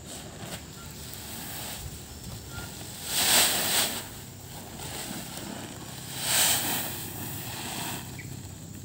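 Unhusked rice grain poured from a sack onto a plastic tarpaulin: two rushing hisses, each about a second long, a few seconds apart.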